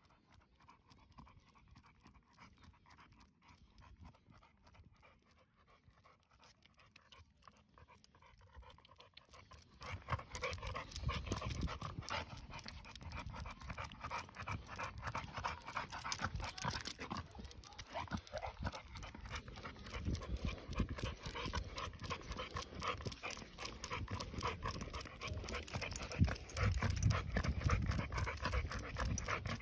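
A bully-breed dog panting with rapid, repeated breaths while walking on a lead; the panting is faint at first and becomes much louder about ten seconds in.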